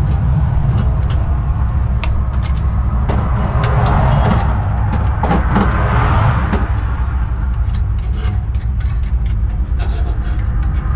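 Steady low rumble of highway traffic, swelling as vehicles pass about four to six seconds in. Scattered light metallic clicks and clinks of hardware being handled under a truck.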